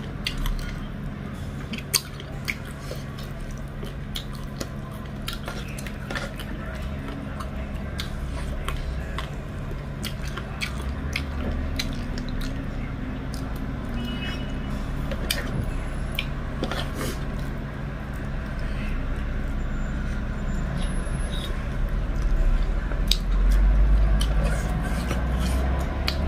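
Close-up eating sounds: chewing and mouth clicks of someone eating dhido and chicken curry by hand, with short clicks of fingers against the dish, over a steady low background hum. A low rumble swells near the end.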